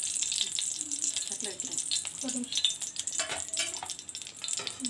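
Banana-leaf-wrapped fish frying in a little oil in a kadai: a steady sizzle full of small crackling pops.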